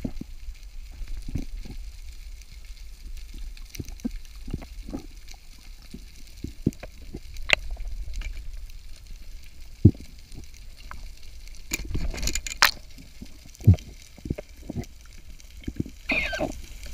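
Underwater sound picked up through a camera housing: a low steady rumble of water with scattered clicks and knocks, and a denser cluster of them about three-quarters of the way through.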